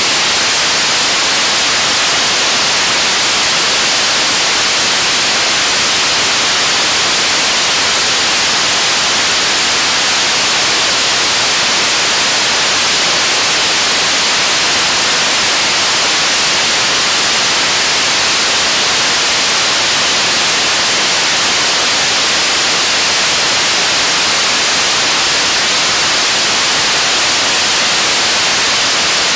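Korean 75-tonne-thrust kerosene–liquid oxygen rocket engine firing at steady thrust on a test stand: a loud, unbroken rushing noise, heavy in hiss, that holds the same level throughout.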